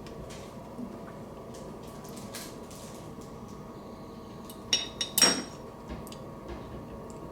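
Dishes and utensils being handled: light clicks and knocks, then two sharp, ringing clinks about five seconds in, like a plate or glass being struck.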